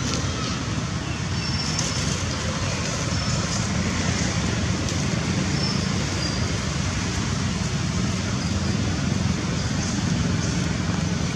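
Steady background rumble of road traffic, with a few faint short high chirps over it.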